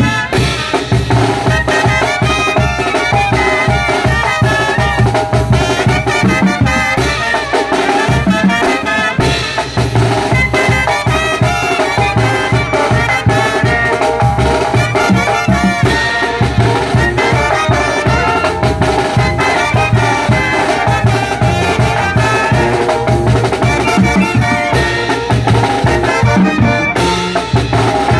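Mexican brass band (banda de viento) playing a lively tune live: trumpets and trombones carry the melody over a sousaphone bass line, with timbales, cymbal and a bass drum keeping a steady, even beat.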